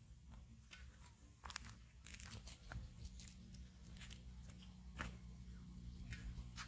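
Faint, scattered clicks and rustles of hands working fish bait: soaked grains scooped out of a plastic cup and dropped onto dough on a steel plate.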